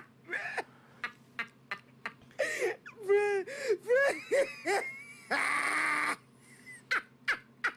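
A man laughing in high, squeaky rising-and-falling bursts about three seconds in, then a loud breathy shriek lasting about a second, with scattered sharp clicks between.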